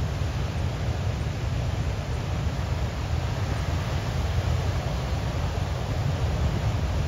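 Heavy ocean surf breaking and washing over a boulder-strewn shore, a steady rush of noise with a deep low rumble underneath.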